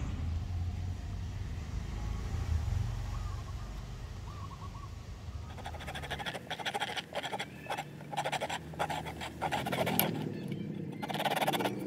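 Fine-toothed hand saw cutting a small piece of Siamese rosewood in quick back-and-forth strokes, about three a second, starting about halfway through with a brief pause near the end. A low steady rumble runs under the first half.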